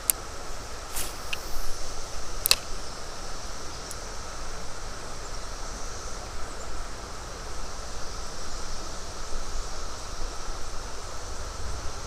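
Outdoor creek-side ambience: a steady low rush of wind and moving water with insects droning in a high, even band. A few sharp clicks in the first couple of seconds.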